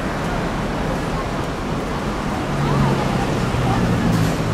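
Busy city street ambience: a steady wash of traffic noise with indistinct voices, and a low hum that swells from about halfway through until just before the end.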